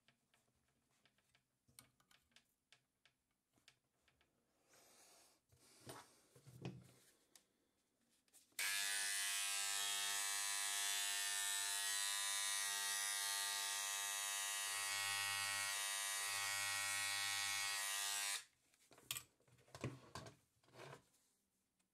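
A powered engraving tool for fossil preparation buzzing steadily for about ten seconds, switched on abruptly a third of the way in and cut off abruptly, with a hiss over the buzz. Light scratches and clicks of tool work on the shale come before and after it.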